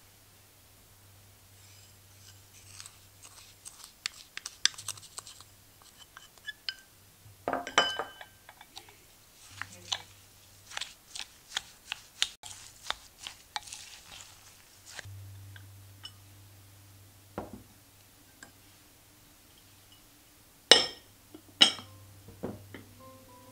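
A wooden spoon stirring diced strawberries and sugar in a glass bowl, with wet squishing and many small clicks and scrapes against the glass. Near the end come two loud, sharp clinks of glass as the bowl is handled and covered with its glass lid. A faint low electrical hum runs underneath.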